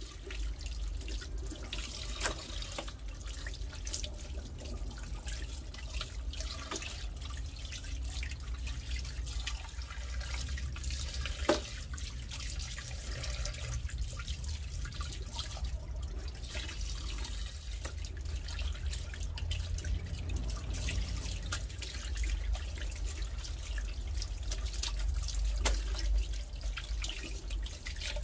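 Water running from a hose over hands washing goat intestines and tripe, with continual splashing and dripping.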